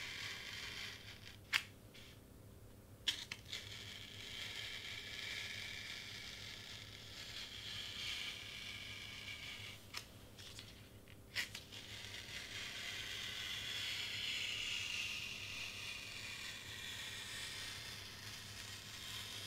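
Sharp Excel Blades craft knife cutting through foam board along traced lines: a soft, continuous scratchy hiss that swells and fades with each stroke. Four short sharp clicks break it, two in the first few seconds and two around ten to eleven seconds in.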